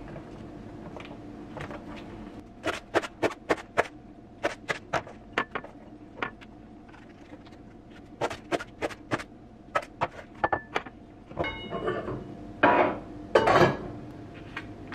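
Knife chopping on a hard cutting board in short quick runs of sharp strikes, about four or five a second. Louder clattering and scraping follow near the end.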